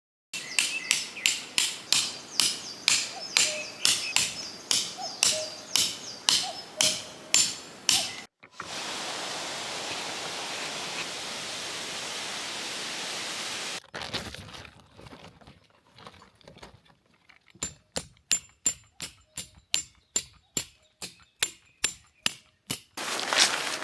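Tent pegs being hammered in with a metal-headed mallet: rapid, evenly spaced strikes with a metallic ring, about three a second, in two runs. Between the runs, a steady hiss lasts about five seconds.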